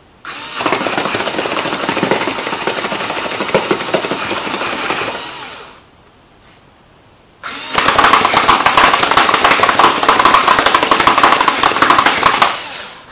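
Home-built wooden rubber band gatling gun firing: its repurposed electric screwdriver motor turns the barrels as the bands snap off one after another in a rapid clatter. Two bursts of about five and a half seconds each, with a short pause between.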